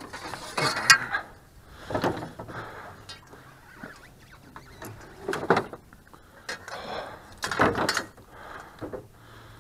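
Scattered knocks, rustles and scrapes as a pike is handled in a landing net on the floor of a small plastic fishing boat, with sharper knocks about two, five and a half and seven and a half seconds in.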